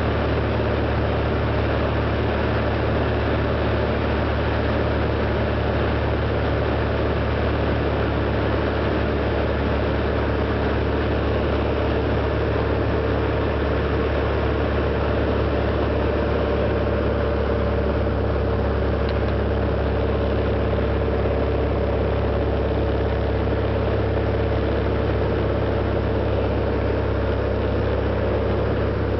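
Cessna 180 Skywagon's six-cylinder engine and propeller droning steadily on landing approach, heard inside the cabin.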